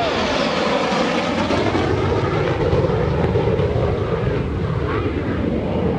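MiG-17PF's Klimov VK-1F afterburning turbojet running in afterburner as the jet makes a low pass and pulls up: a loud, steady jet noise.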